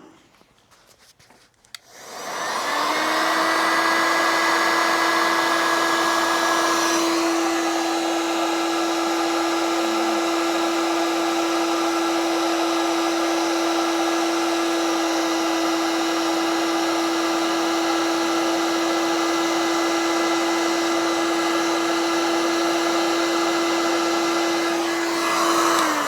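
Electric hot-air blower switched on about two seconds in and running with a steady hum and rush of air, then switched off at the very end. It is heating the seized OS MAX 40 glow engine's case to loosen the piston liner.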